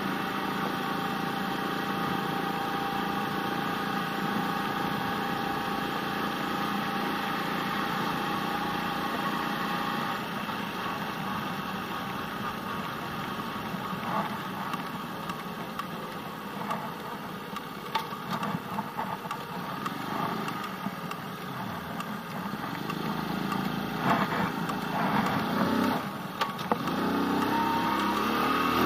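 Small step-through motorbike's engine heard from the rider's seat. It runs steadily at first, eases off to a lower, quieter note for a while, then picks up again with a rising note in the last few seconds, with a few sharp clicks along the way.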